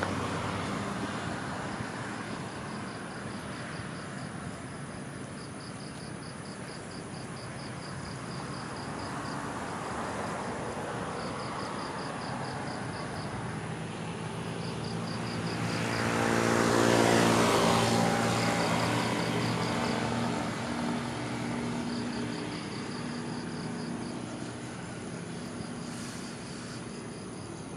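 Outdoor traffic hum with a motor vehicle passing close by about halfway through, its engine growing louder and then fading over a few seconds. Short runs of a high, rapid pulsing chirp repeat.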